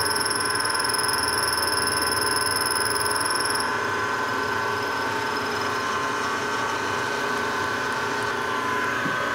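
Milling machine spindle running with a quarter-inch four-flute carbide end mill side-milling a flat on a W1 tool-steel rod in a conventional cut. A high whine from the cut stops about four seconds in, and the spindle starts to wind down at the very end.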